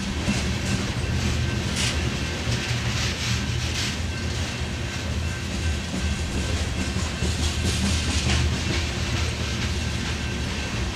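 Empty hopper cars of a Union Pacific rock train rolling past close by: a steady low rumble with the wheels clicking over the rails every second or so.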